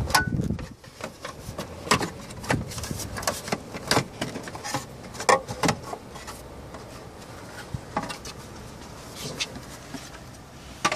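Plastic door-sill trim on a BMW 7 Series being pried loose with a plastic trim removal tool: irregular sharp clicks and knocks as the clips pop and the panel is handled.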